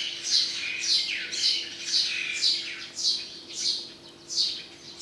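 A bird calling over and over: short, high-pitched chirps that each fall in pitch, about two a second.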